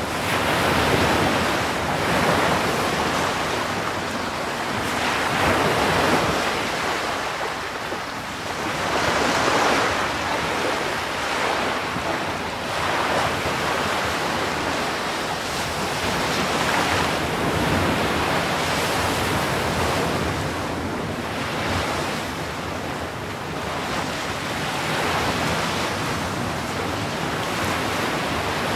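Ocean surf breaking and washing up a pebble shore, a continuous rush of breakers that swells and eases every few seconds.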